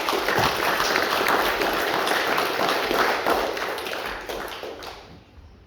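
Audience applauding with a dense patter of clapping hands, which dies away about five seconds in.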